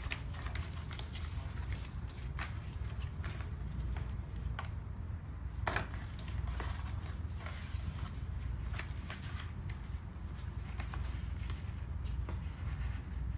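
A cardboard box blank being folded by hand: a run of short crackles and snaps as the creased flaps are bent up and pressed down, with one sharper snap a little past halfway, over a steady low hum.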